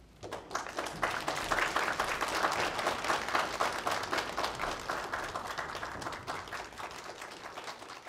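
Audience applauding: many people clapping, starting just after the beginning, fullest over the first few seconds and then slowly dying away.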